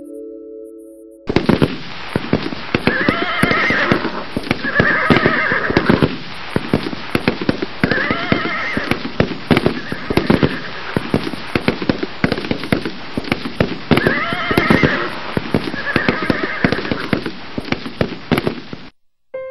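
Horses whinnying several times over a dense, irregular clatter of sharp cracks, like a stock horse-chase sound effect. It starts suddenly about a second in and cuts off abruptly near the end.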